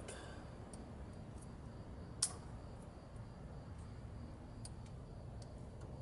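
Small sharp plastic clicks as fingers work a brittle plastic electrical connector, prying at its top piece, which will not bend up. One clear click about two seconds in, then a few fainter ticks, over a faint steady hum.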